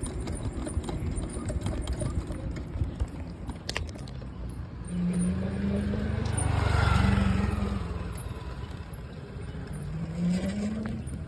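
Electric bike riding over asphalt: low road rumble and rattling, with wind on the microphone. A hum rises in pitch a few times, and a louder rushing swell peaks about seven seconds in.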